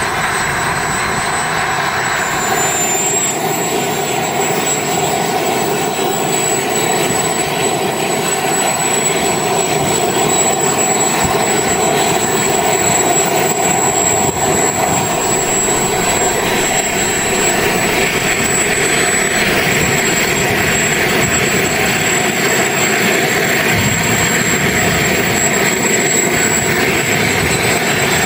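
Two Kingtech K210 gas turbine engines of a giant-scale RC F-14 running on the ground: a steady rushing jet noise with a high, thin whine over it, growing a little louder in the second half.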